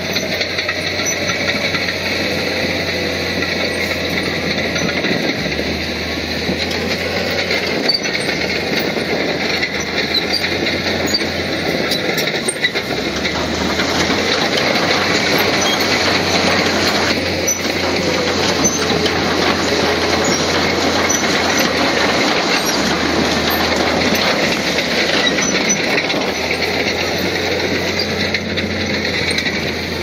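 Crawler bulldozer running steadily, its diesel engine mixed with the metallic clatter and squeal of its steel tracks.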